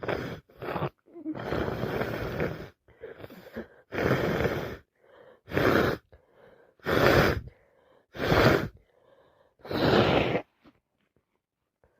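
A woman with a wet head cold blowing her nose and sniffling in a series of about ten noisy bursts, one long blow of about a second and a half near the start, then shorter ones every second or so.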